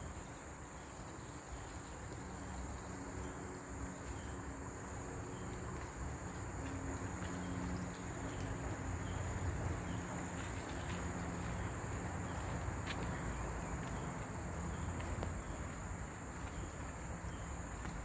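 Insects droning in a steady high pitch, over a constant hiss and a low rumble.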